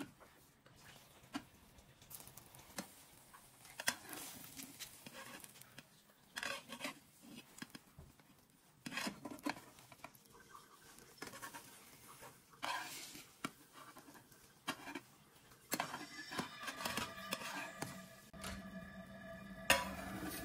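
Metal slotted turner and silicone spatula scraping and knocking against a nonstick frying pan as a soufflé omelette is folded and pushed around, in irregular strokes. Soft background music comes in during the last few seconds.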